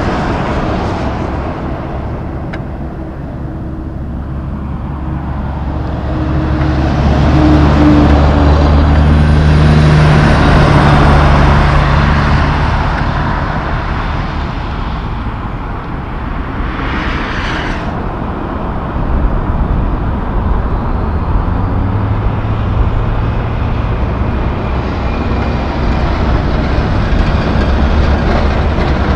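Highway traffic passing close by: heavy diesel trucks and cars going past, a low engine drone over rushing tyre noise that swells to its loudest about a third of the way in and builds again near the end, with a brief hiss partway through.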